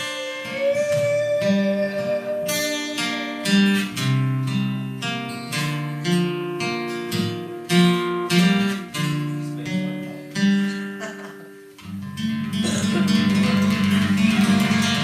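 Acoustic guitar picking single notes and chords as a song's instrumental ending, then about twelve seconds in changing to a fuller, continuous strum.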